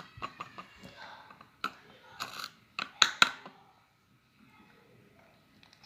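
Kitchen utensils clicking and clinking against a bowl while water is added to a flour, salt and oil mix: a scatter of sharp clicks, the loudest two close together about three seconds in, then it goes quieter.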